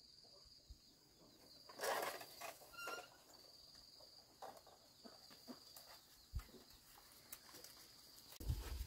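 An animal calls once, briefly, about two seconds in, over a steady high thin whine. Low knocks near the end come from a woven bamboo basket handled close by.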